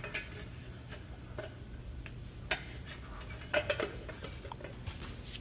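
Light metallic clinks and taps, a handful spread over a few seconds, as a metal cover is fitted back on, over a steady low hum of boiler-room equipment.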